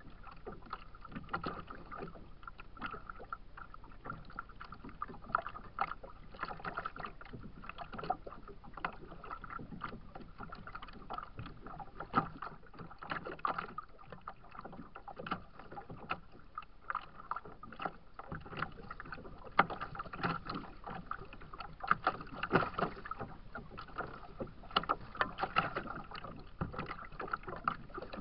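Choppy lake water slapping and splashing against a kayak's plastic hull: a continuous, irregular patter of small sharp splashes over a steady wash of water.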